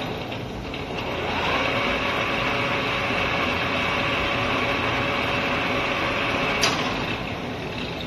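Lathe spindle with a four-jaw chuck and stud bar spinning up with a rising whine about a second in, then running with a steady whine. A sharp click comes near the end, and the whine fades as the spindle winds down.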